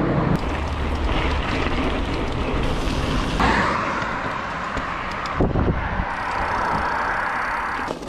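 Wind rushing over a chest-mounted action camera's microphone while an enduro mountain bike rolls along, its tyres hissing on the road; a brighter hiss sets in about three seconds in.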